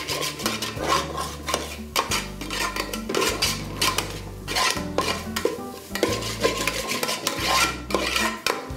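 Long metal spoon stirring and scraping a thick onion-and-spice masala around an aluminium pot, with repeated irregular scrapes and clinks against the pot's sides and bottom.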